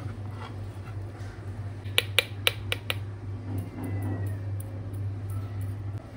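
A metal spoon clinks sharply against a bowl five times in quick succession while mashing avocado. Fainter light ticks follow as salt is tapped out of a plastic measuring spoon, all over a steady low hum.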